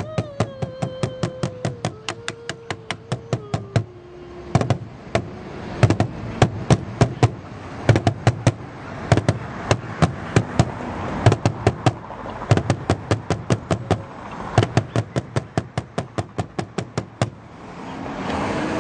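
Large drum with a cowhide head beaten fast and evenly with two sticks, about five strokes a second, stopping near the end. A long held note slides slowly down over the first few seconds.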